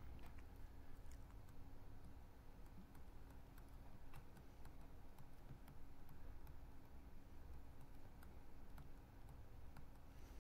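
Faint scattered clicks and taps of a stylus writing on a pen tablet or screen, over quiet room noise with a steady low hum.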